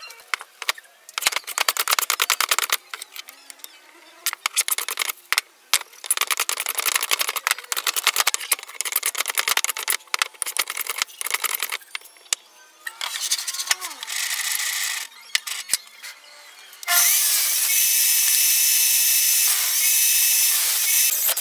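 Hand plane taking repeated rasping strokes along a wooden block. Near the end a table saw runs loud and steady, cutting the block, dipping briefly twice.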